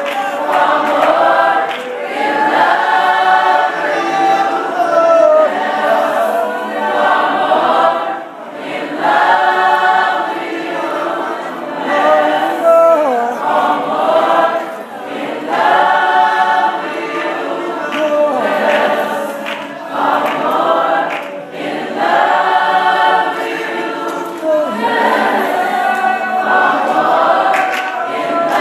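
A group of voices singing a worship song in phrases a couple of seconds long, with no clear instrumental beat.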